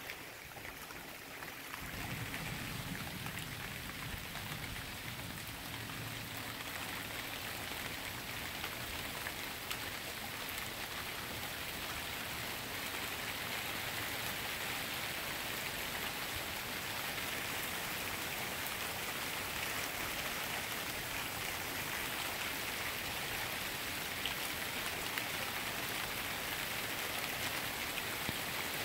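Steady rain falling on a wet street and lawn: an even hiss that fills in about two seconds in and then holds steady.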